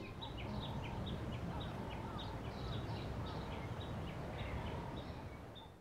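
Birds chirping, short repeated calls about three or four a second, over a steady low rumble; it all fades out near the end.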